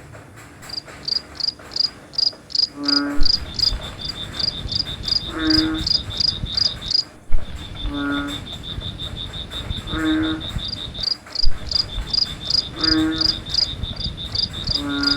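Crickets chirping in quick, even pulses over a steady high trill, with a frog giving a short croak about every two to three seconds, six times.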